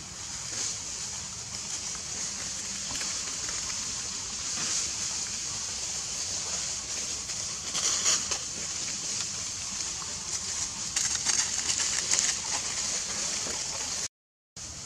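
Crackly rustling of dry leaf litter as monkeys walk over it, in flurries, over a steady high hiss; the sound cuts out for about half a second near the end.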